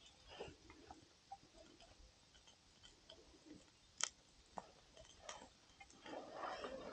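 Faint crackling of a campfire burning resin-soaked pine wood: scattered small ticks and pops, with one sharper snap about four seconds in.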